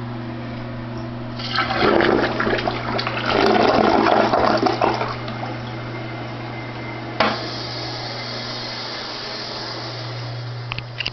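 Toilet flushing: a loud rush of water swirling down the bowl for about three and a half seconds, then a sharp click a couple of seconds later and a steady hiss of running water. A steady low hum runs underneath.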